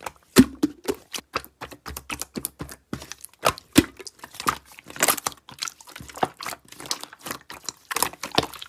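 Slime being played with by hand: a run of irregular clicks and crackles, several a second.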